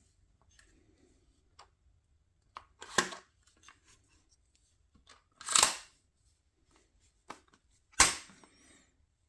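Handling noise from hard objects: a sharp clack, then a longer rasping scrape about half a second long, then another sharp clack with a short ring-out, a couple of seconds apart, with faint clicks in between.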